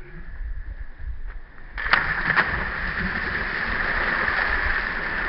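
Low wind rumble on the microphone, then about two seconds in a sudden splash followed by steady, loud splashing and churning water close by.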